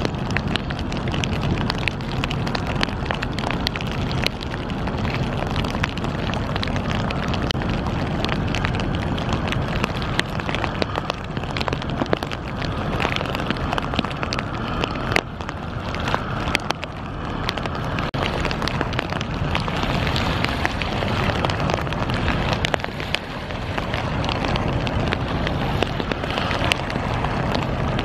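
Wind buffeting the camera's microphone: a steady rough rush full of crackles, with a low rumble, easing briefly a couple of times.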